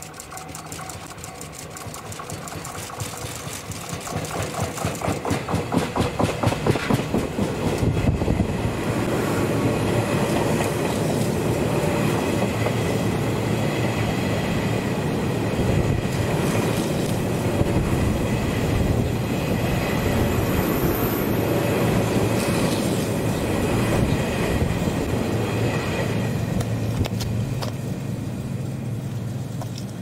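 Tobu 50000-series electric train passing at speed. Rapid wheel clicks over the rails grow louder as it approaches. A steady rolling rumble with a high whine follows while the cars go by, then fades as it moves away.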